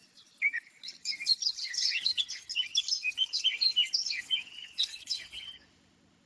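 Birdsong: a rapid run of high chirps and twitters, starting about half a second in and stopping shortly before the end.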